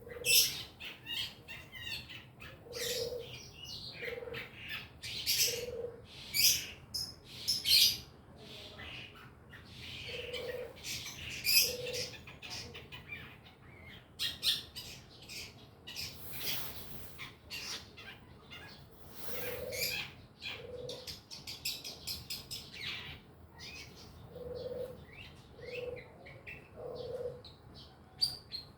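Long-tailed shrike (cendet) chattering: a rambling string of short, high twitters and calls in irregular bursts, the soft practice song (ngriwik) of a bird still learning its song. A short low note recurs every second or two underneath.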